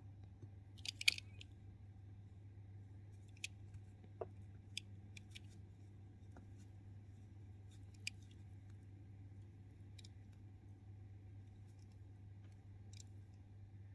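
Faint, scattered clicks of polished tiger's eye stone beads knocking against each other as a 12 mm bead bracelet is handled and turned in the fingers, with a short cluster of the loudest clicks about a second in. A steady low hum runs underneath.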